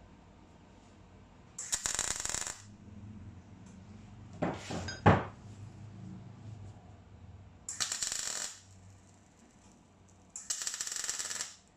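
MIG welding torch laying short welds on a steel-tube motorcycle seat hoop: three crackling, sizzling arc bursts of about a second each, with a single sharp metallic clank between the first two.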